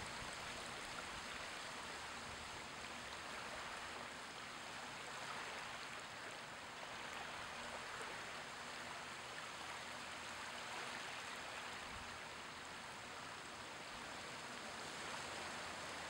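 Steady wash of water at a shoreline, small waves and rippling water with no single wave breaking out.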